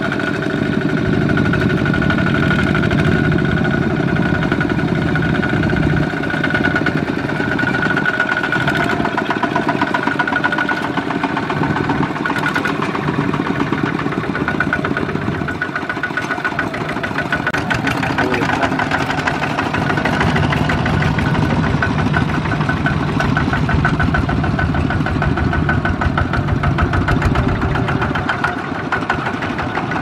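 Several two-wheel walking tractors with single-cylinder diesel engines chugging steadily as they pull loaded trailers past.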